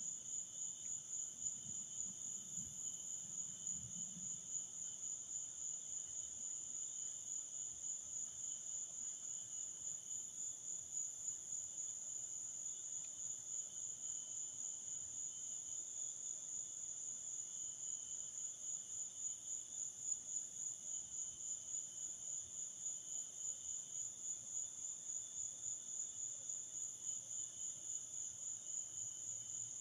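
Crickets chirping in a steady, continuous high-pitched night chorus, a fast even pulsing that does not let up.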